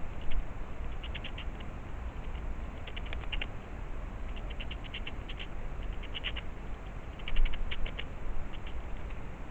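A frog calling: short runs of rapid clicking pulses, repeated every second or two, over a low steady rumble.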